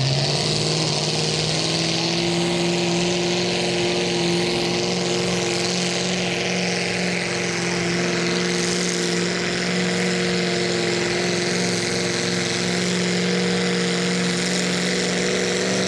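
Mini modified pulling tractor's engine running at full throttle under load as it drags the sled down the track. It revs up at the launch, then holds nearly steady high revs with a strong hiss on top.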